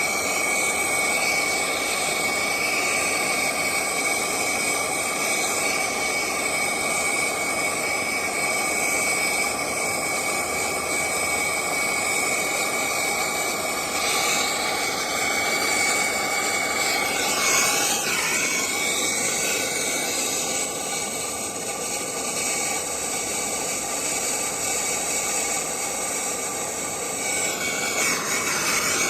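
Brazing torch flame burning steadily: a loud, even hiss with a thin high whistle through it, wavering briefly past the middle and again near the end.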